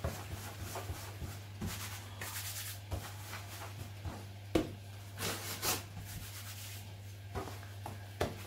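Hands rolling pieces of bread dough into balls on a floured countertop: soft rubbing and brushing strokes with a few light taps, and one louder thump about halfway through.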